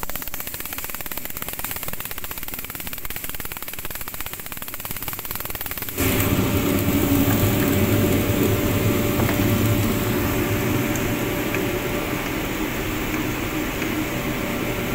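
Cremation furnace's burner and blower fans running: a steady rush of air and flame. About six seconds in it turns abruptly louder, with a low rumble and a faint steady hum.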